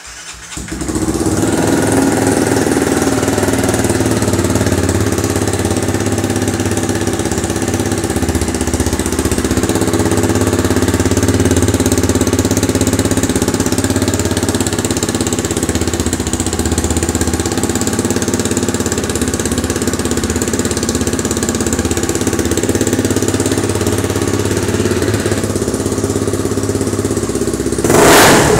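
Honda CB300R's single-cylinder four-stroke engine running through an adapted aftermarket RS5 exhaust tip: it starts up within the first second and settles into a steady idle, then is revved hard near the end.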